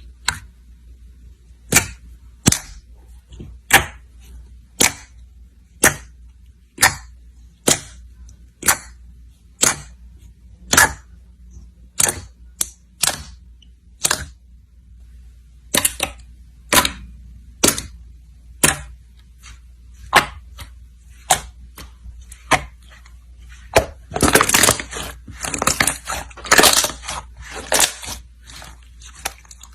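Slime being pressed and poked, giving sharp popping clicks about once a second. Near the end it breaks into a dense run of crackling pops.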